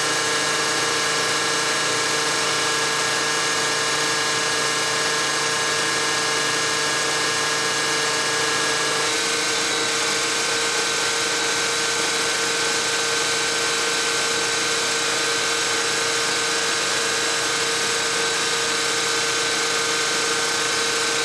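Bacharach injection-pump test stand running a Bosch VE rotary diesel injection pump as it fires a set of injectors: a steady mechanical whine and drone. About nine seconds in, the pitch shifts slightly.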